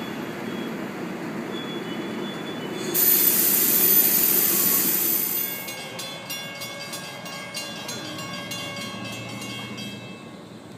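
NJ Transit Comet V commuter train rolling past with a low rumble, then a sudden loud hiss about three seconds in that lasts a couple of seconds. After that it goes quieter, with a rapid, regular ringing that stops near the end.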